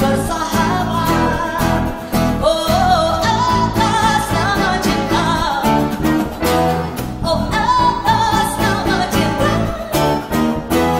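Live band of grand piano, accordion, acoustic guitar and electric bass playing a song, with a woman's voice singing a wavering melody over it.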